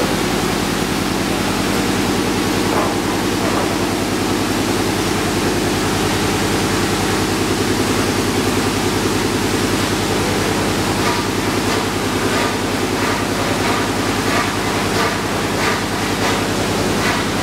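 Stainless-steel pressure discharge cooker running: a steady, loud machine hiss with a fast, even low throbbing underneath, and scattered light ticks in the second half.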